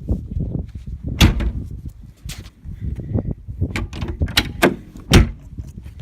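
Tractor cab door being handled: a series of knocks and latch clicks, with a sharp bang about a second in and the loudest one near the end, over a low rumble.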